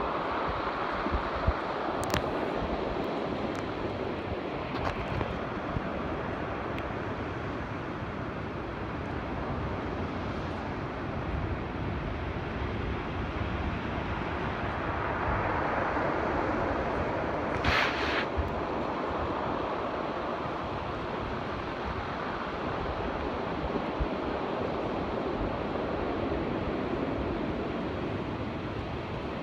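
Open sea water rushing and splashing around a boat, with wind buffeting the microphone as a low rumble. A short, louder splash-like hiss comes about 18 seconds in.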